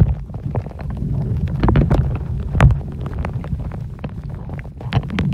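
Underwater sound picked up by a snorkeler's camera: a low, muffled rumble of water moving over the housing and microphone, with scattered clicks and crackles. A few louder rushes of noise come around two seconds in.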